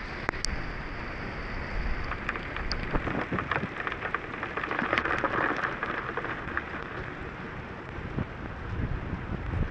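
Heavy rain pelting a vehicle's windshield and roof during a thunderstorm: a dense patter of drops, heaviest in the middle, with low rumbles underneath.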